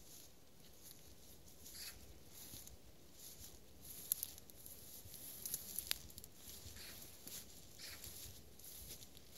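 Faint, irregular rustling and crackling, with a few sharp clicks about four and six seconds in, over a quiet hiss.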